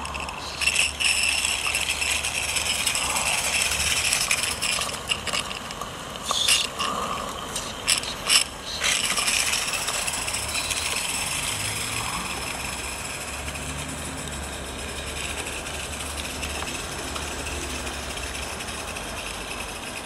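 Small 16mm-scale live-steam Hunslet locomotive working a snowplough along snowy track: a steady steam hiss with mechanical rattling. A cluster of sharp clicks and knocks comes between about six and nine seconds in.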